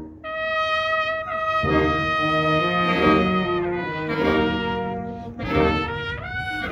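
Wind band of brass and saxophones playing: a single held note opens, then the full band comes in with sustained chords after about a second and a half.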